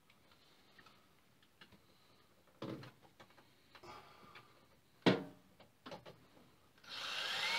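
A few faint clicks and knocks, the sharpest about five seconds in, then near the end a cordless drill spins up with a rising whine, driving a screw.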